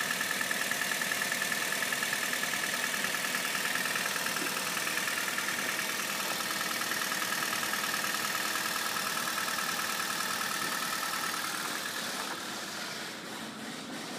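2003 Honda Civic Hybrid's 1.3-litre four-cylinder engine idling steadily, heard from the open engine bay, growing fainter over the last couple of seconds.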